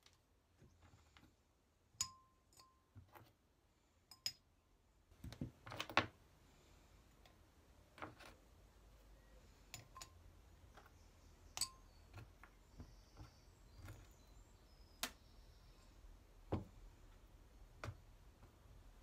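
A ceramic plant pot being handled: scattered quiet knocks and clinks as it is lifted, turned and set down, while a hand works the soil inside it.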